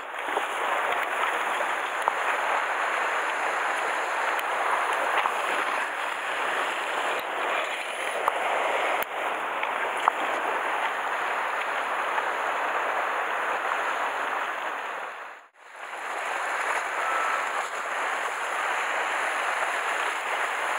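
Sea surf washing against the rocks of the shore, a steady rushing hiss with a few small clicks. It dips almost to nothing for a moment about fifteen seconds in, then comes back.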